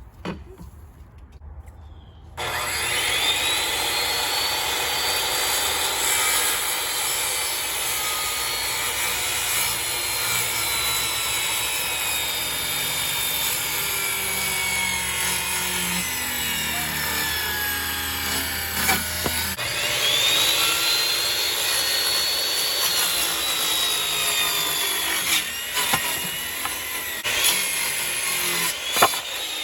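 Electric power saw cutting wood. The motor spins up about two seconds in, and its whine sags slowly in pitch under load through one long cut. It stops briefly and spins up again for a second cut a few seconds before the end.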